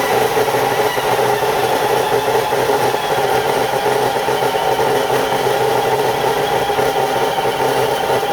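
Tank TAK-355D metal cut-off saw running loud and steady, its motor holding an even whine with no change in speed.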